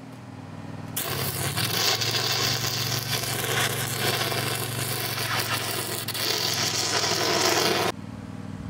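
Stick-welding arc crackling and sizzling as an electrode welds a steel nut onto a pipe. The arc strikes about a second in and breaks off sharply near the end, over a steady low hum.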